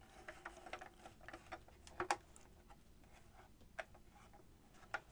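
Faint, scattered clicks and taps of a hard plastic toy starship being handled and turned over, with a few sharper clicks about two seconds in, near four seconds and just before the end.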